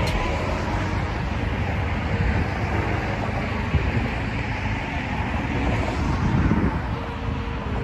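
Steady outdoor background noise: a low rumble with hiss, with no single sound standing out.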